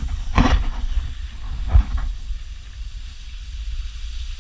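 Wind buffeting an action camera's microphone while riding down a snowy ski slope: a steady low rumble with hiss, and two brief louder noises about half a second and nearly two seconds in.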